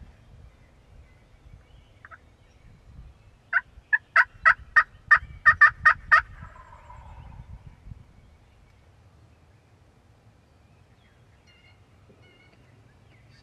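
Turkey yelping: a run of about nine sharp, evenly spaced yelps, about three a second, lasting roughly three seconds, followed by a fainter, lower, falling rattle.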